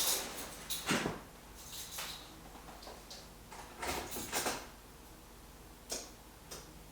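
A few scattered knocks and clicks, like a car door and handling inside the car, with no starter cranking and no engine: the starting attempt gets nothing because the newly extended wires were not plugged in under the dash.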